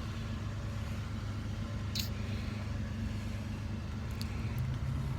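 A vehicle engine idling steadily, with a brief high-pitched click about two seconds in.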